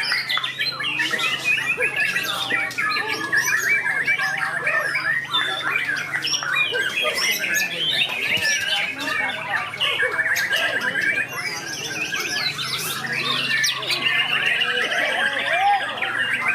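Several caged white-rumped shamas (murai batu) singing at once in a contest, a dense overlapping mix of whistled phrases and rapid trills, with no pause.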